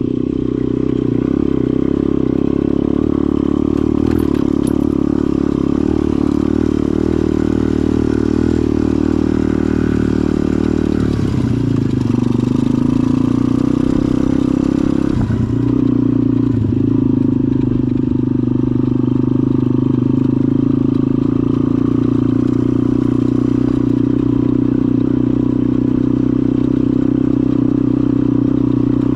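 KXD 125 pit bike's single-cylinder four-stroke engine running steadily under way. Its pitch dips and picks up again twice around the middle.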